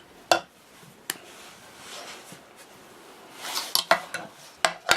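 Light clicks and clinks of small tools and sunglasses parts being handled on a hard surface: two single clicks, then a quick cluster of clatter near the end.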